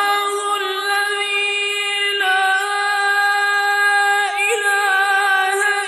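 Unaccompanied Quran recitation in the Iraqi style: a single voice holds a long, high, sustained note, with a brief ornamental turn in pitch a little past the middle.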